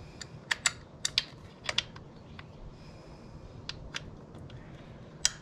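Sharp clicks and taps of a motorcycle chain guard being handled and fitted back against the swingarm: a quick run of clicks in the first two seconds, two more around four seconds in, and the loudest one just before the end.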